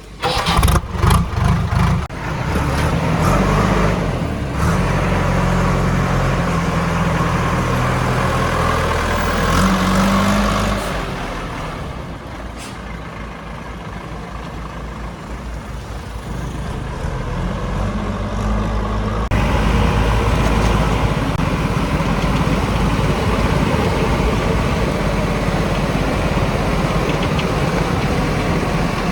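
Heavy diesel engine running, its pitch and load rising and falling, with several knocks in the first couple of seconds. The sound changes abruptly about nineteen seconds in.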